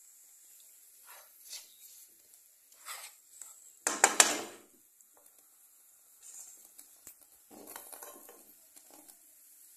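Wooden spatula stirring and scraping chopped onions and spices around a frying pan, in short scrapes. A much louder cluster of sharp knocks comes about four seconds in, as the utensil strikes the pan.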